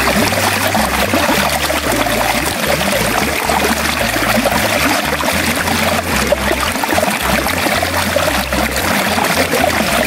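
Shallow water running and trickling along a narrow stone-lined channel, a steady rushing hiss.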